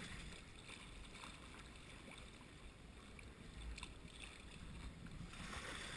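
Quiet water noise of calm sea lapping around a sea kayak, with a few faint ticks, growing slightly louder near the end.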